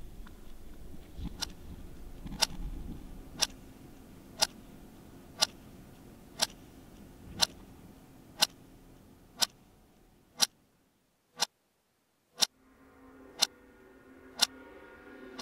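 A clock ticking steadily, once a second, starting about a second and a half in. A low background rumble fades away about two-thirds of the way through, and soft music with held tones fades in under the ticks near the end.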